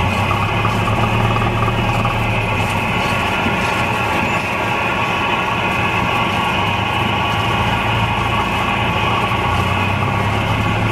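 Cessna 172's piston engine and propeller running steadily at low taxi power, heard inside the cockpit, with a steady hiss over the low hum.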